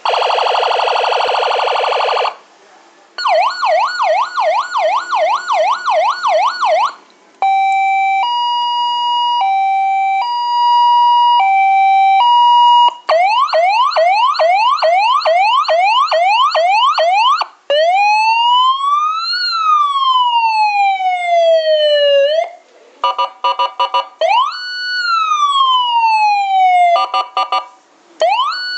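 CJB 150 A electronic police siren cycling through its tones, with short gaps between them. First a buzzing horn blast, then a fast yelp, a two-tone hi-lo, rapid rising whoops, a slow wail that rises and falls, and choppy pulsed tones, with another wail starting near the end.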